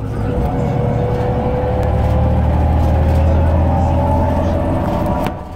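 Irisbus Citelis 18 articulated city bus heard from inside the cabin while under way: steady low diesel drone with a drivetrain whine that rises slowly in pitch. The level dips briefly near the end.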